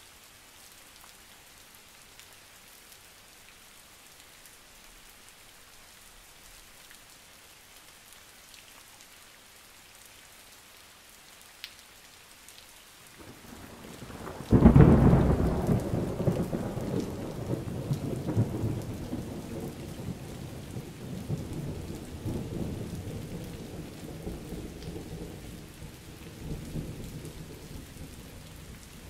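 Steady light rain, then about halfway through a low rumble builds into a loud clap of thunder, which rolls on in long waves and slowly fades while the rain continues.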